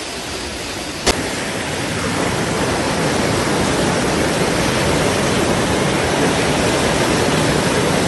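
Fast-flowing floodwater rushing and churning, a steady noise of torrential water. A sharp click about a second in, after which the rushing is louder.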